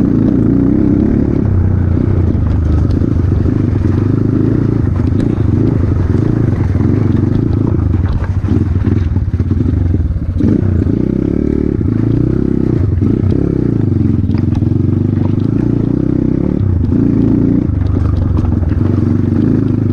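Off-road motorcycle engine running hard, its revs rising and falling, with a brief drop in the revs about nine to ten seconds in.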